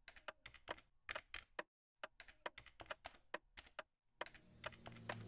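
Rapid, irregular computer-keyboard typing clicks, broken twice by a short dead silence. Near the end a rising whoosh starts to build under the last clicks.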